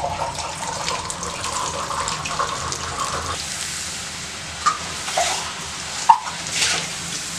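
Parboiled potato sticks dropped into hot oil in a metal kadai, the oil bubbling and sizzling steadily as they start their first fry. In the second half a few short scrapes of a wire skimmer stirring them against the pan.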